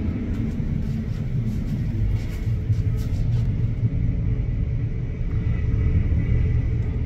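Boeing 777 freighter's jet engines at full climb power, heard from the ground as a steady low rumble while the aircraft climbs away after takeoff.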